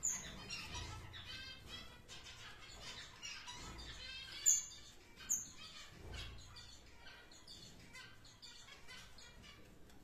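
Tricolored parrot finches chirping: a busy stream of short, high chirps, broken by a few sharp, very high calls, the loudest about four and a half seconds in.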